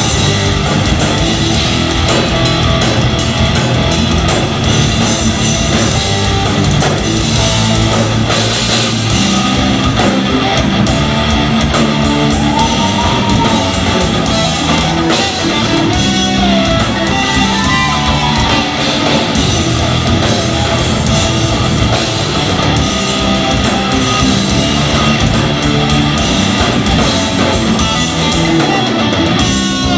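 A live progressive metal band playing: electric guitars, bass and drum kit, loud and continuous.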